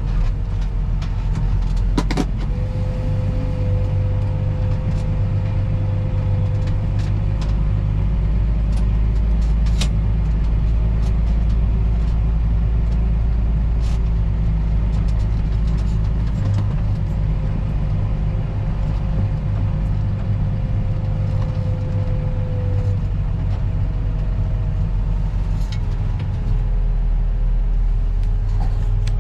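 Diesel engine of a heavy earthmoving machine running steadily with a deep rumble, a faint steady whine above it and a few sharp clicks.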